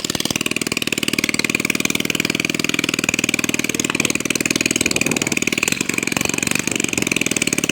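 Motorcycle engine idling steadily through a loud aftermarket 'roncador' exhaust, with a fast, even stream of exhaust pulses. It is a hell of a noise. The rider says the bike drinks too much fuel with this exhaust and is about to swap it.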